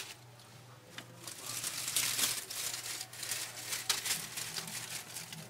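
Dry leaf litter crackling and rustling in irregular bursts with sharp crinkles, starting about a second in and dying away near the end.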